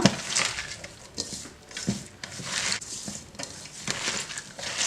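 Hands squeezing and rubbing sliced onions, ginger, garlic, green chillies and curry leaves with salt in a pot, a series of wet, crunchy squishing strokes with a few light knocks. The onions are being crushed by hand until they break down.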